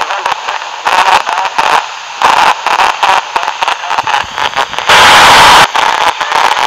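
Amateur radio receiver tuned to an FM satellite downlink with no one transmitting: choppy static and hiss that keeps breaking in and out as the weak signal fades, with a loud rush of full static lasting most of a second about five seconds in.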